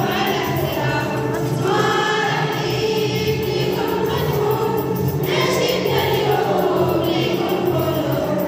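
A group of voices singing an Arabic scout anthem (nashid) together, over steady sustained low notes.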